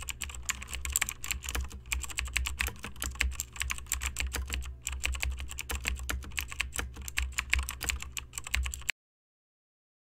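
Fast typing on a computer keyboard: a quick run of clicking keystrokes with one short pause a little before halfway, over a low steady hum, cutting off abruptly about nine seconds in.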